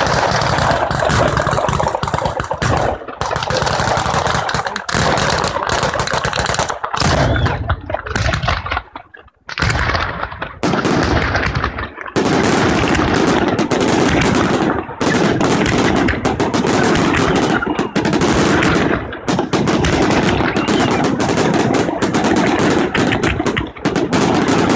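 A batteria alla bolognese fireworks barrage: a dense, rapid string of firecracker bangs and shell bursts running almost without a break, like machine-gun fire, with a brief lull about nine seconds in.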